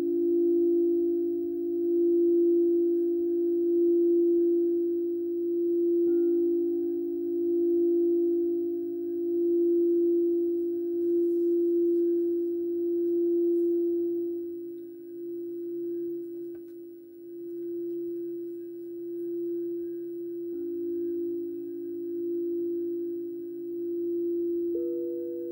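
Frosted quartz crystal singing bowl sung by a mallet circling its rim: a steady, pure ringing tone that swells and fades in a slow pulse about every two seconds. A second, higher tone joins near the end.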